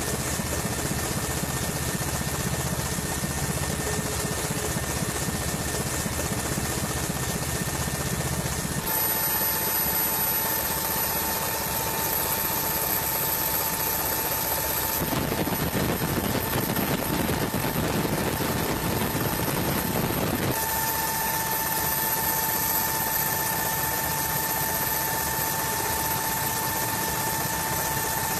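Steady engine and rotor noise of a helicopter, with a steady high whine through much of it; the sound changes abruptly a few times.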